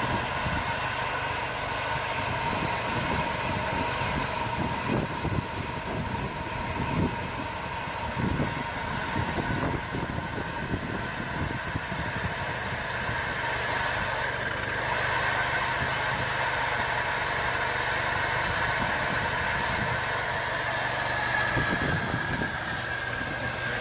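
Portable sawmill's gas engine running steadily under load as its saw is pushed through a large walnut log, cutting the first slab off the log.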